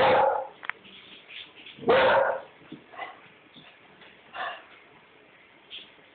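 Springer spaniel barking, apparently at something she senses outside: two loud barks about two seconds apart, then a few fainter, shorter ones.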